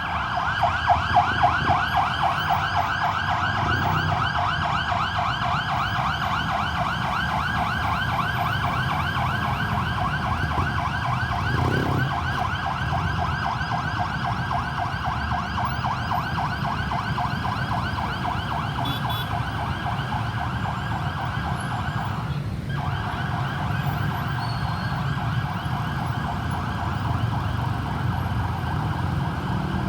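Ambulance siren on its fast yelp setting, the pitch sweeping up many times a second, over the low rumble of the vehicle and road. The siren drops out for a moment about three-quarters of the way through, then carries on.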